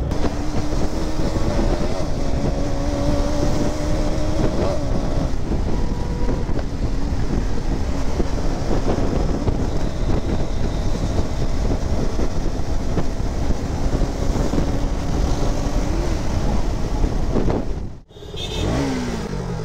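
Traffic in a slow-moving jam: a steady vehicle engine hum over heavy low rumble, with a brief break near the end followed by falling engine tones.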